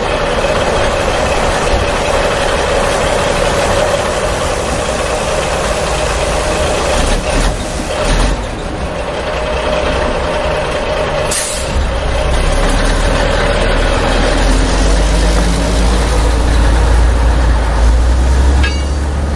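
A heavy truck's engine running steadily, with a deep rumble that grows stronger about halfway through.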